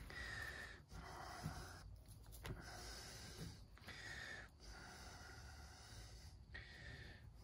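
Faint breathing of a person close to the microphone: several slow breaths.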